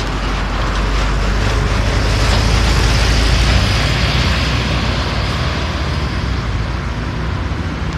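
Road traffic noise: a heavy vehicle's engine rumble and tyre noise grow louder as it passes, peaking a little before halfway, then slowly fading.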